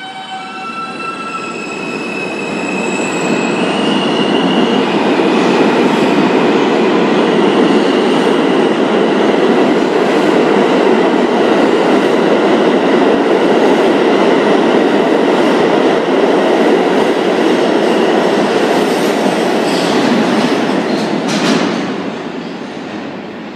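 New York City subway train pulling out of the station: its propulsion whines in rising steps for the first few seconds, then a steady rumble of wheels on rail as the cars speed past. Near the end a single sharp clack, and the sound fades as the train leaves.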